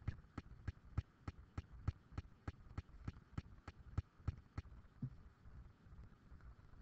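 Quiet, evenly spaced clicks or taps, about three a second, that stop about four and a half seconds in.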